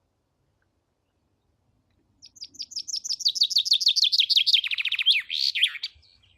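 A songbird singing one song phrase, starting about two seconds in: a quick run of high notes that speeds up and falls in pitch, ending in a short flourish.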